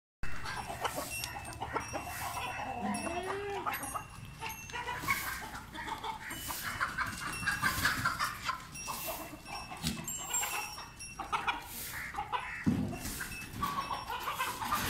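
Farmyard animal calls: many short clucking and chirping calls throughout, with a low call that rises and falls about three seconds in.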